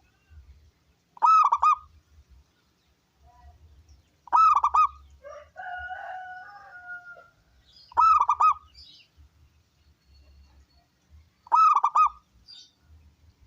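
Zebra dove (perkutut) cooing in four short, loud phrases, each about half a second long and spaced three to four seconds apart. A fainter, longer sound comes between the second and third phrases.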